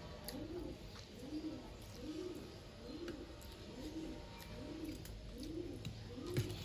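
Pigeon cooing over and over, a soft rise-and-fall call repeated a little more than once a second, with faint small clicks and a soft knock near the end.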